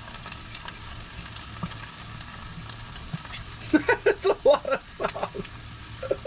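Chicken sizzling steadily in a hot frying pan, with a quick run of louder sputters and glugs between about four and five and a half seconds in as bottled Kung Pao sauce pours into the pan.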